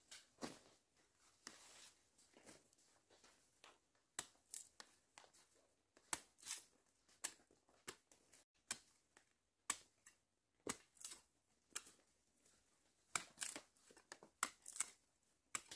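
A blade cutting hands of bananas from a freshly cut banana bunch: a string of crisp, separate cuts and snaps, about one or two a second and a little quicker near the end, with some rustling of dry leaves.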